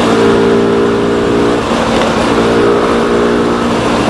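Rusi SS250 sport bike's engine running steadily at road speed, with wind rush over the camera microphone. The engine note drops back briefly about halfway through, then picks up again.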